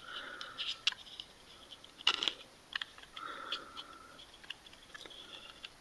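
Faint scattered clicks and light scratching of fingers handling an opened Baofeng UV-5R handheld radio's plastic housing and rubber keypad, with one louder click about two seconds in.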